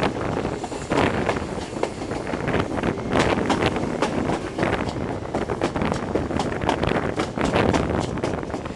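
Wind buffeting the microphone at the open window of a moving High Speed Train, over the rumble of its wheels on the track, with many short sharp crackles from about three seconds in.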